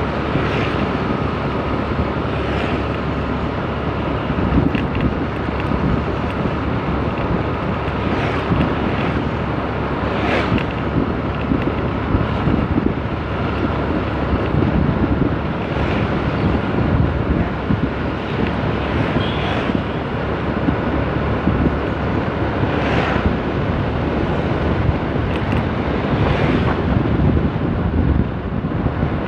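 Wind rushing over the phone microphone while riding a motor scooter, over the scooter's steady engine and road noise. A few stronger gusts come and go.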